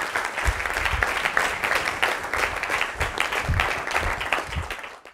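Audience applauding, a dense patter of many hands clapping that tails off and stops right at the end.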